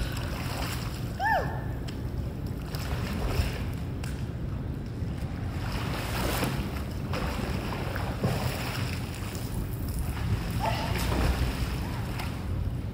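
Pool water splashing and churning as a person swims, with wind rumbling on the microphone; a short high chirp about a second in.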